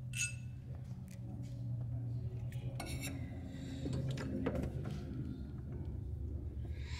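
Light metallic clinks and taps of a pulley installer tool and a power steering pump pulley being handled and fitted onto the pump shaft, scattered throughout, over a low steady hum.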